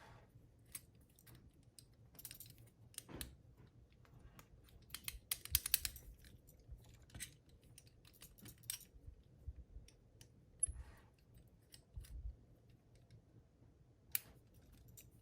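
Small metal clicks and rattles of a padlock and its loose parts being handled and turned over. There is a quick run of clicks about five to six seconds in, with single clicks scattered around it.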